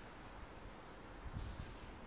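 Faint, steady outdoor background hiss, with low, irregular rumbling on the microphone starting about a second and a half in.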